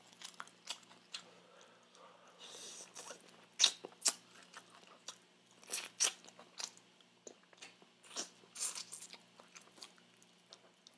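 Close-miked eating of Jollibee crispy fried chicken, held in the hands: bites and chewing, with a handful of sharp crunches scattered through, the loudest around the middle.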